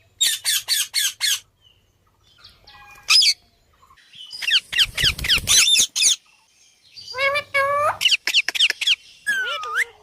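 Ringneck parakeets squawking: a quick run of five harsh calls at the start, then more groups of shrill, sweeping calls with short pauses between them.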